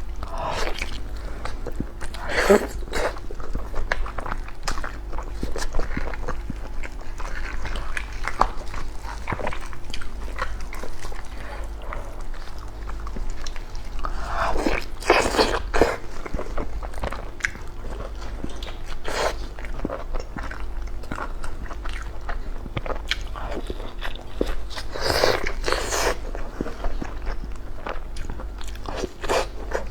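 A person biting and chewing food close to the microphone, mukbang-style, with louder bites about 2, 15 and 25 seconds in, over a steady low hum.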